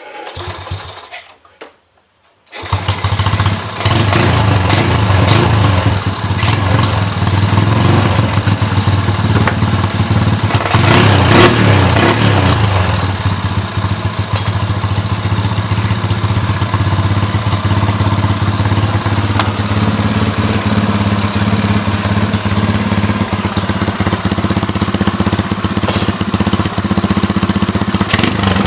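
Yamaha Lagenda 110's single-cylinder four-stroke engine catching about two and a half seconds in, then running steadily at idle.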